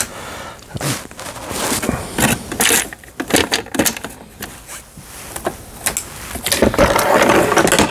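Irregular clicks and knocks of plastic and metal parts being handled on an opened-up household sewing machine, with a longer stretch of clatter near the end.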